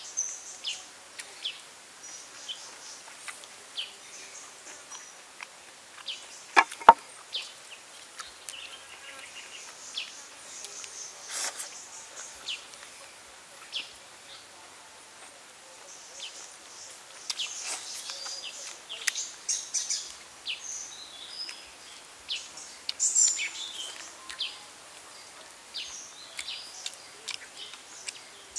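Birds chirping in the forest over scattered light clicks and smacks of eating with bamboo chopsticks. One sharp knock stands out about seven seconds in.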